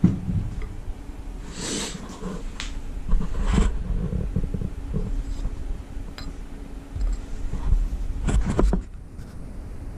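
Handling noise: rustling and a few light knocks as the camera is moved around a workbench and a loose camshaft sprocket is picked up, over a steady low hum.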